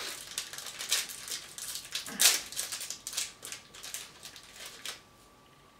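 Plastic candy wrapper crinkling and crackling in quick irregular rustles as it is handled and opened, stopping about five seconds in.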